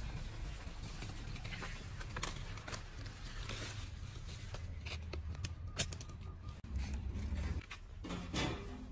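Rustling and scraping of cut leafy branches being handled, with scattered sharp clicks over a steady low rumble.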